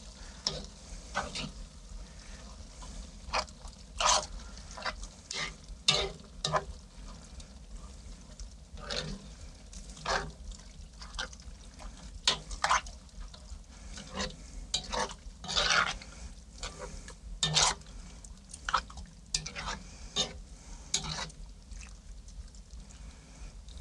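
A spoon stirring thick chili in a cast-iron kazan, scraping and clinking against the pot at irregular intervals, about one or two strokes a second.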